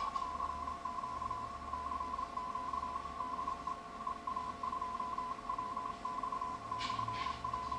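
Morse code (CW) on the 40-metre amateur band, heard through an ELAD FDM-S2 software-defined receiver: a tone near 1 kHz keyed on and off in dots and dashes over band hiss, with weaker steady tones beneath it. A couple of brief clicks come near the end.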